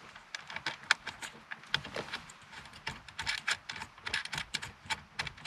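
Irregular small clicks and rattles of plastic connectors and cable looms handled at the back of an Android car head unit, as a GPS antenna cable is pushed into its socket.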